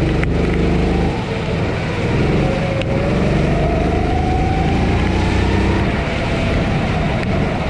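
Honda GX270 single-cylinder four-stroke engine of a Sodi SR4 kart running under load, heard on board. It eases briefly about a second in, then its pitch climbs as the kart accelerates and holds steady.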